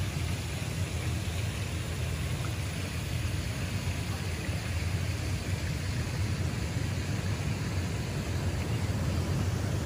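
Steady rumbling noise with a hiss over it, even throughout with no distinct events.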